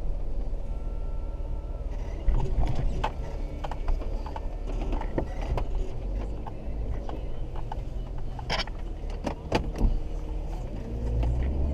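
1999 Jeep Cherokee XJ driving, heard from inside the cabin: steady engine and road rumble with scattered sharp clicks and rattles, and the engine note starting to rise as it speeds up near the end.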